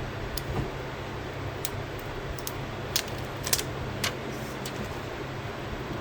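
A handful of short, sharp clicks and taps of small hard objects, a few of them close together about three to four seconds in, over a steady hiss and low hum.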